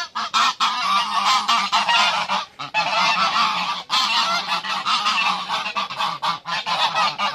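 A flock of geese honking, many harsh calls overlapping in a continuous din with hardly a pause.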